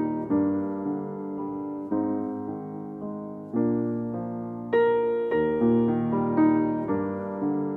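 Background piano music: slow chords struck about once a second or so, each ringing and fading.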